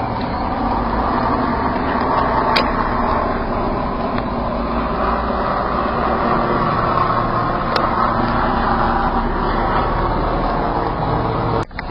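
Helicopter flying overhead: a steady engine and rotor drone that swells and eases a little, breaking off suddenly near the end.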